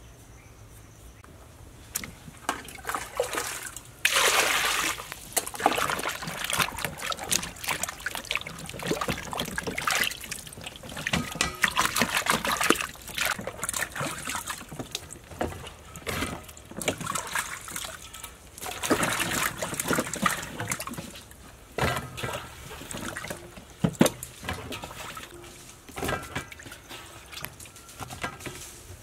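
Hands washing a peeled green papaya and vegetables in a metal basin of water: irregular splashing and sloshing that starts about two seconds in, with a longer, louder splash about four seconds in.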